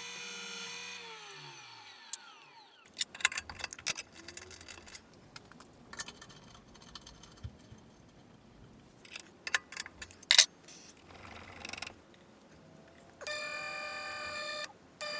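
Drill press motor running, then spinning down to a stop in the first few seconds. Sharp metallic clicks and knocks follow as the chuck is worked by hand to fit the drill bit. Near the end the motor starts again and runs steadily.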